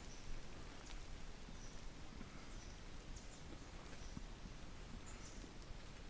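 Quiet rainforest ambience: a steady low hiss and rumble with a few faint, short high chirps scattered through.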